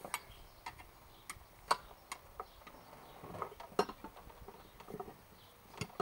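Irregular sharp clicks and taps, a dozen or so, of a tire tool knocking against a steel Model T split rim as the tire is worked onto it.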